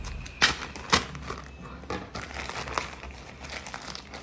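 Plastic courier mailer bag crinkling and being torn open by hand, in irregular crackles. Two loud sharp crackles come about half a second and a second in.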